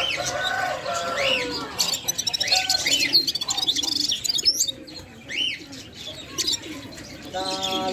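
Red-fronted serin singing: a run of quick, high, arching chirps and fast twittering trills. A lower, steadier call sounds beneath it near the start and again near the end.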